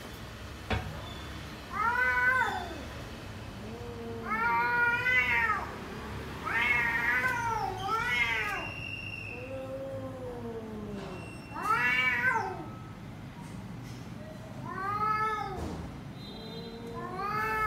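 Domestic cats meowing repeatedly: about eight drawn-out meows, each rising and then falling in pitch, coming every second or two. One meow about ten seconds in is lower-pitched than the rest.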